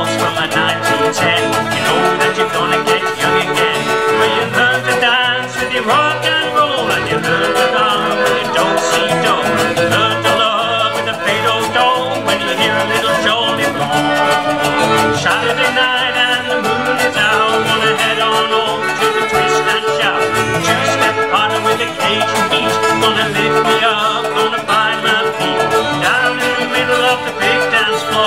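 Live acoustic band playing: fiddle, button accordion, acoustic guitar and resonator guitar, with a rubboard scraped in time.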